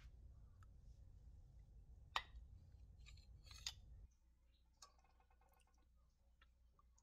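Faint clinks of a steel ladle against the pot and a serving bowl while curry is dished out: two sharp clicks, about two seconds in and just before four seconds, then a few fainter ticks. A low hum underneath cuts off about four seconds in.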